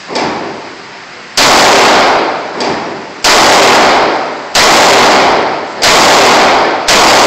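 .38 Special revolver fired five times at a steady pace, a loud shot about every 1.3 seconds, each one ringing on for about a second in the range. Two much fainter bangs come in between, one just after the start and one about a third of the way in.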